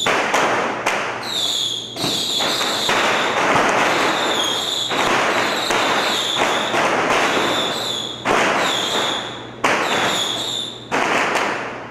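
A string of firecrackers going off in a dense, continuous crackle, with sudden louder bangs now and then. Short high whistles falling in pitch sound about once a second over the crackle.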